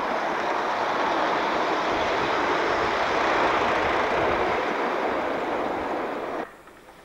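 Model train running along the track: a steady rolling rattle of wheels on rail that cuts off suddenly about six and a half seconds in.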